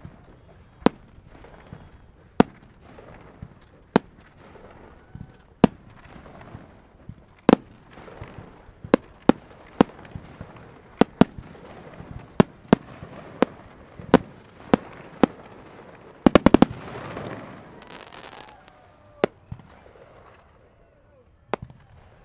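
Aerial fireworks going off: sharp shell bursts booming every second or so. About sixteen seconds in comes a rapid string of about six cracks, followed by a couple of seconds of dense crackling.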